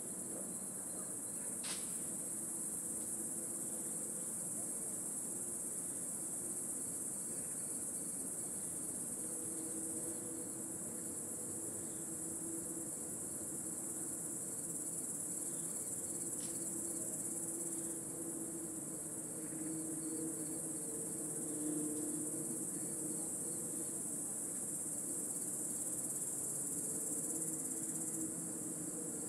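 Dense insect chorus in a meadow: one steady, high-pitched drone that runs on without a break.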